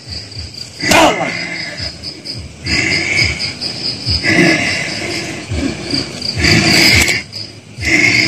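Crickets chirping in a steady, pulsing trill, with several loud wordless cries from a person breaking in every second or two, the loudest about a second in.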